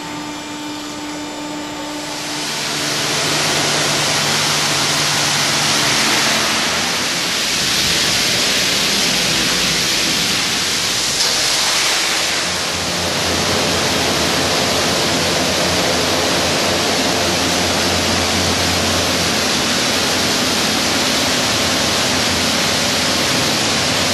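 High-pressure water spray from an automatic robotic truck-washing system striking a garbage truck: a steady hiss that swells about two seconds in, with a low machine hum beneath.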